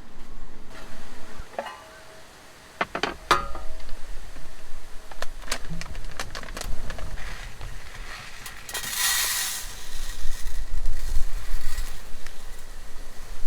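Objects being handled: a series of sharp clicks and clinks, then a brief hiss about nine seconds in.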